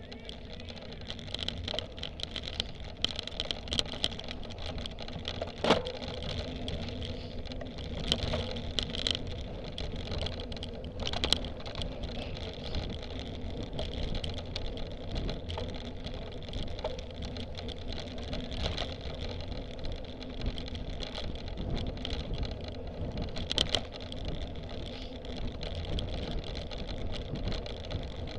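Cyclocross bike ridden fast over bumpy grass, heard from a camera mounted on the bike: a steady low rumble with constant rattling and a few sharp knocks over bumps.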